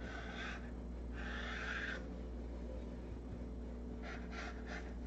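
Kitchen knife cutting rolled pastry dough into squares on wax paper: a few short, soft scraping strokes, the loudest about a second in, and a quick run of small strokes near the end, over a steady low hum.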